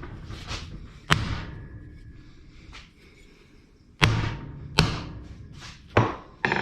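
Five or so hammer blows on the rusty steel casing of an old electric water pump, knocking it apart. The blows are spaced irregularly, each a sharp knock with a short ringing decay.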